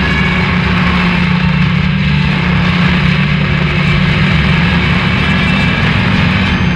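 Loud, steady drone from a noise/drone music track: a heavy low hum with a dense wash of noise over it, unchanging throughout.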